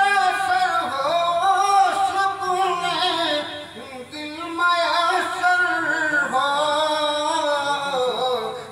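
A man chanting a naat, a devotional poem in praise of the Prophet, in a melodic sung voice into a microphone, drawing out long, wavering notes.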